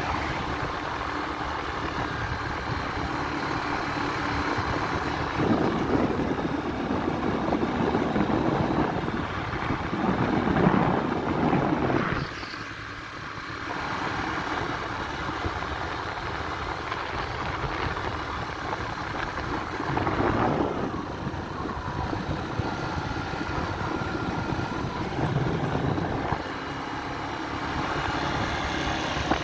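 Motor scooter riding along a road: engine running under dense wind and road noise that swells and fades, dipping briefly about twelve seconds in.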